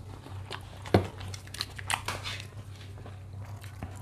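Close-miked mouth eating sounds: chewing and biting noodles and toppings, with scattered small wet clicks and a sharper click about a second in, over a low steady hum.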